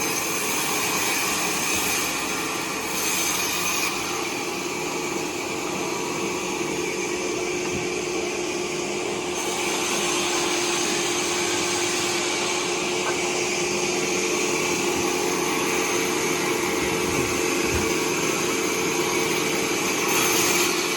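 Timber bandsaw running and sawing wood: a steady machine whine over continuous cutting noise. The higher hiss thickens about nine seconds in.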